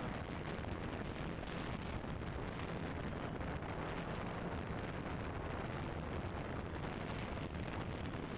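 DJI Phantom 2 quadcopter's four electric motors and propellers running steadily in flight, heard from the camera mounted on the drone: a constant low hum under a rushing, wind-like noise.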